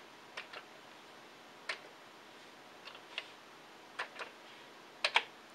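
Keys of a Commodore VIC-20 keyboard pressed one at a time while an AT modem command is typed: faint, separate clicks, a few in quick pairs.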